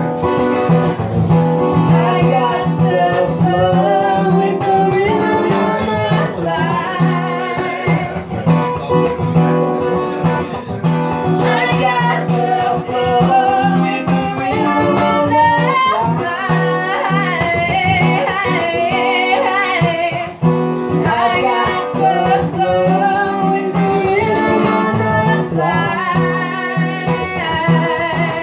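Live acoustic guitar playing with a voice singing a wavering melody over it.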